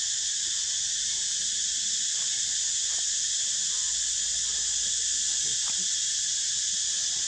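A steady, high-pitched chorus of insects, continuous and unchanging throughout.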